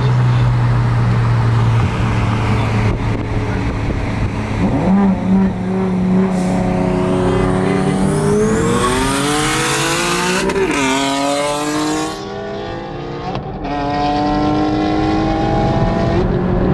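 Cars racing from a roll at full throttle. A steady engine drone at cruise, then about a third of the way in the engine note climbs hard, drops at a gear shift and climbs again, more than once.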